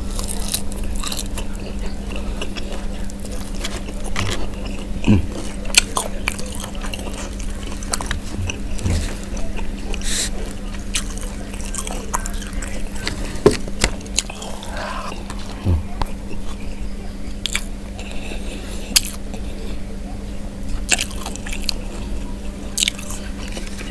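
Close-up chewing and biting of fried chicken and rice with sambal, with wet mouth smacks and clicks scattered throughout. A steady low hum runs underneath.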